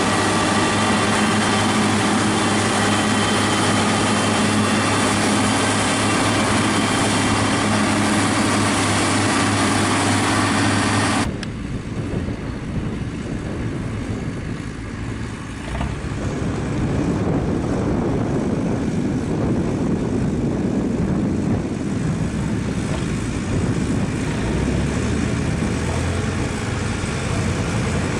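Hesston 7420 self-propelled forage harvester chopping maize at work: a steady engine drone under a loud hiss from the chopper and blower. About eleven seconds in this gives way abruptly to a quieter, rougher sound of a Same Centurion 75 tractor pulling a loaded trailer across the field, growing louder a few seconds later.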